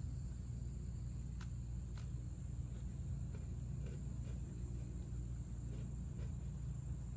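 Steady high-pitched drone of insects singing, over a steady low hum, with a few faint clicks.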